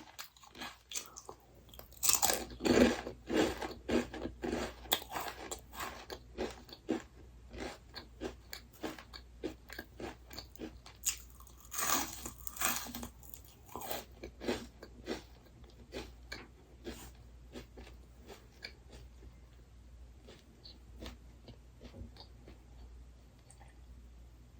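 Crunchy food being bitten and chewed close to the microphone: a rapid run of crisp crunches, loudest in bursts near the start and about halfway, thinning out toward the end.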